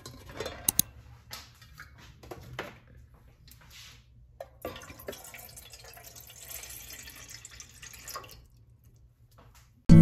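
Water being poured into a metal saucepan: a steady splashing pour lasting about three seconds that stops short. Before it come a few light clicks and knocks of handling.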